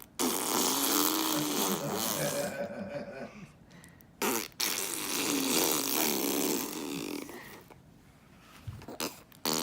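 A baby blowing raspberries: two long, voiced lip buzzes of about three seconds each, the second starting about four and a half seconds in.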